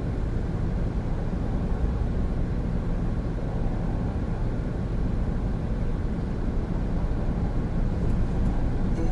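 Steady low drone inside a 2017 Honda N-BOX Custom on the move: its 660 cc turbocharged engine running, with tyre and road noise.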